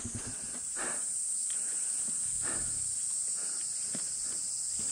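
Steady high-pitched insect chorus, with a few faint knocks about a second in and halfway through.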